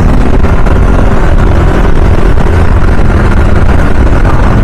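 Scooter being ridden at speed: its small engine running under a steady, loud rumble of wind rush on a helmet-mounted microphone.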